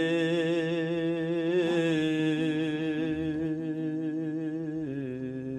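A singer holding one long note with vibrato at the end of a line of a Kazakh folk song, slowly fading, the pitch stepping down about five seconds in, over a steady lower accompanying tone.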